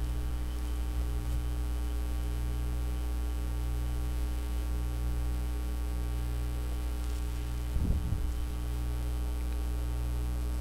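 Steady electrical mains hum with a stack of even overtones, picked up by the recording setup, with one brief low thud about eight seconds in.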